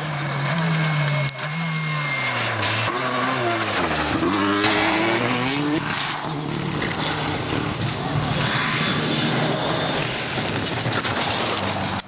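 Rally cars at speed on a gravel stage. A Citroën DS3 rally car's engine drops in pitch as it passes about four seconds in, then climbs again as it accelerates away. About halfway through, another rally car's engine takes over, running hard.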